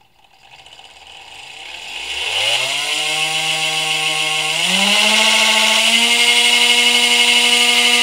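DC motor on a PWM speed controller spinning up as the speed knob is turned: a whine that rises in pitch from about two seconds in, then steps up twice more to a steady top speed, over a hiss that grows louder with it.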